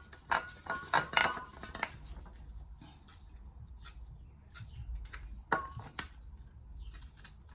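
Light metallic clinks and taps: a cluster in the first two seconds, scattered faint ticks, then one sharper clink about five and a half seconds in.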